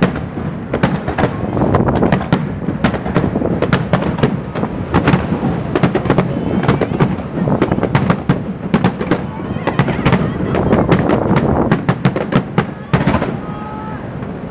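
Fireworks display: a dense, rapid run of booms and crackling bursts, easing off about thirteen seconds in.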